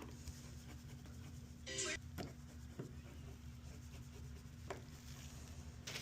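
Faint rubbing and a few small clicks from handling a phone and repair tools, with one brief louder scrape about two seconds in.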